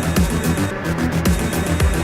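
Electronic dance music with a steady, driving beat and heavy bass.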